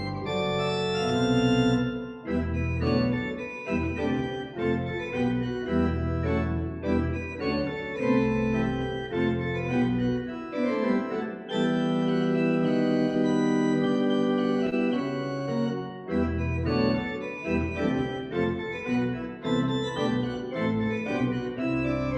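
Pipe organ playing full chords over a bass line, the harmony changing every second or so, with one long held chord a little past the middle.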